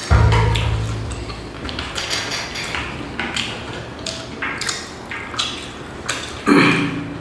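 Eating at the table: crunchy bites and chewing of crispy fried chicken among short taps and clatter of food containers, with a low thump near the start and a louder clatter near the end.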